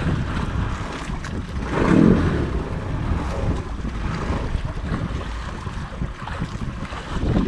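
Wind buffeting the microphone over sea waves washing around an outrigger fishing boat, a steady rough rush that swells louder about two seconds in.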